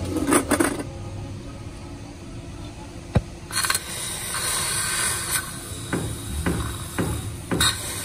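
Clinks, knocks and scraping of tools and metal parts being handled. A clatter comes near the start, a sharp click about three seconds in, then a steady hiss with several knocks in the second half.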